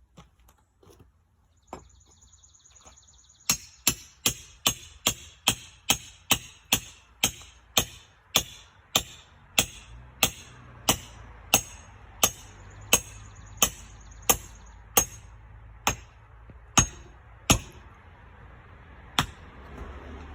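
Hand hammer blows on brick masonry, struck in a steady rhythm of a little under two blows a second for about fourteen seconds, each with a sharp ringing crack, then one last blow near the end. The brick is being broken up by hand because the jackhammer has broken down.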